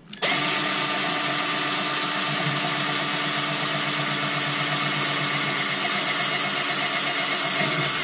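Cordless drill running steadily at high speed, drilling a pilot hole through a hydrofoil plate into an outboard motor's cavitation plate. The drill starts just after the beginning and keeps an even pitch throughout.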